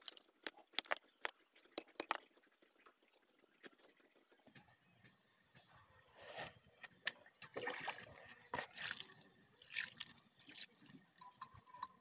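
Hand work on a clay forge pit: a quick run of sharp clicks and knocks in the first two seconds, then, from about halfway in, several seconds of soft, irregular scraping and sloshing as water and wet earth are worked by hand.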